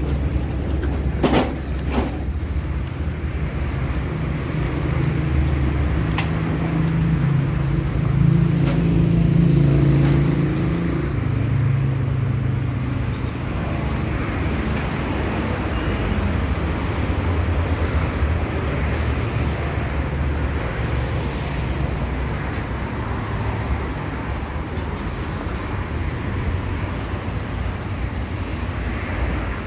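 Street traffic: a steady low rumble of passing cars. One vehicle's engine swells louder and fades again between about six and twelve seconds in.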